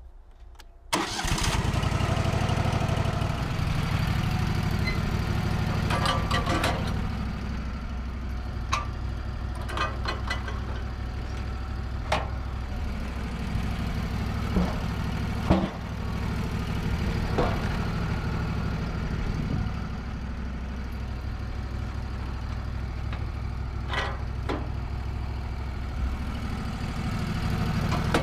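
The sawmill's 25 hp Kohler engine starts about a second in, catching at once, then runs steadily, with scattered sharp clicks and knocks over it.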